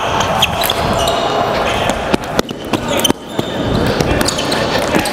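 Floorball game play heard close up from a player's body microphone: repeated sharp knocks of sticks and ball and footfalls on the court floor, with voices in the hall behind.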